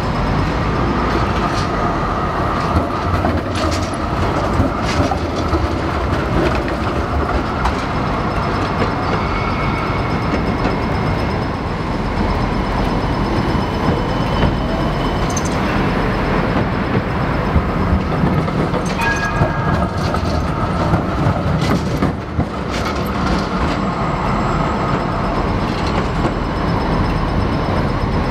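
Electric trams running through a city street intersection amid traffic. Steel wheels clack over the track crossings now and then, and a faint high whine comes twice.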